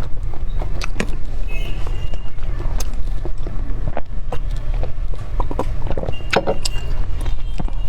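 Close-up eating sounds: soft chewing and scattered small mouth clicks, over a loud, steady low rumble.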